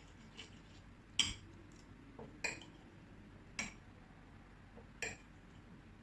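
Metal cutlery clinking against a plate: four sharp clinks about a second apart, the first the loudest, with a few fainter taps between them.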